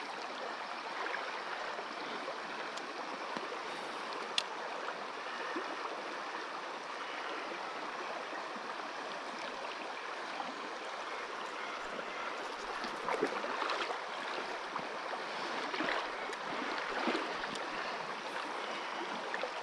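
Shallow river running over a rocky riffle, a steady rush of water, with a few faint clicks.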